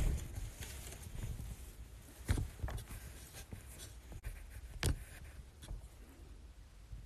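Handling noise of a phone held close to its microphone: light rustling with a few sharp knocks, the two loudest about two and a third and five seconds in.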